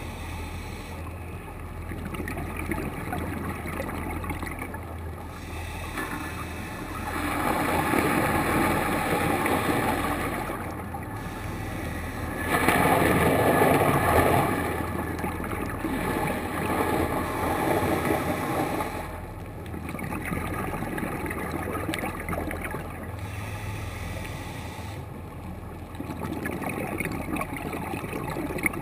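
Muffled underwater sound through a camera's waterproof housing: a steady low hum, with swells of rushing, bubbling noise every few seconds, the loudest about halfway through. The uploader takes the background din for a boat on the surface.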